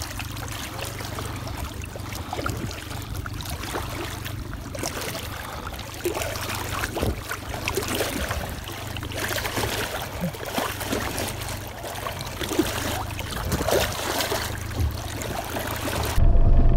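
Water rushing and splashing close to the microphone along the side of a slowly moving boat, with many small splashes where a brown trout is held in the flow. Near the end it cuts abruptly to a louder, steady low engine rumble.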